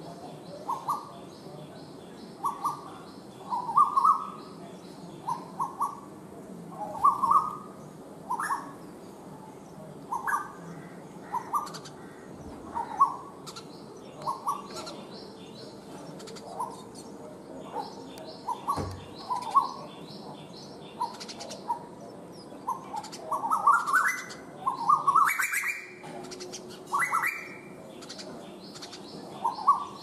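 Male Asian koel calling: short, rising whistled notes repeated in pairs and groups, building to a faster, higher run near the end. Fainter, high-pitched chirping of smaller birds runs behind.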